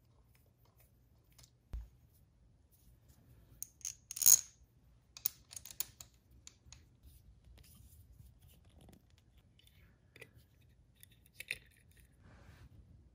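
Light metallic clinks and clicks of small hardware being handled as the horn and its mounting bolt come off: one sharp clink about four seconds in, the loudest, a few lighter clicks just after, and another couple near the end. A soft thump comes just before two seconds.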